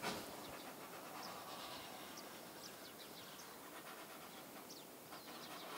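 Faint outdoor background with birds chirping in short, high, scattered notes, and a light knock right at the start.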